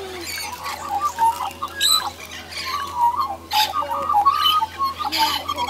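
Australian magpies warbling and chattering: many short, wavering pitched notes with quick high chirps mixed in, over a faint steady low hum.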